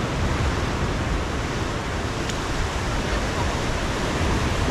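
Sea surf: a steady, even rush of waves with a low rumble underneath, no single break standing out.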